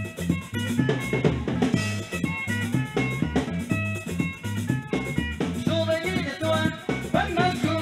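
Live band dance music amplified through a PA: a drum kit and congas keep a steady beat under sustained melodic lines, and a voice starts singing near the end.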